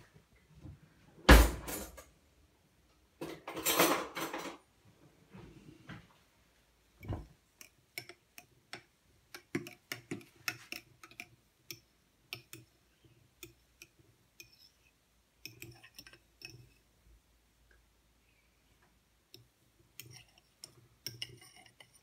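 A metal spoon stirring milky coffee in a tall drinking glass, clinking and tapping against the glass in a long irregular run of short clicks. Near the start there is a louder thump and a brief noisy handling sound.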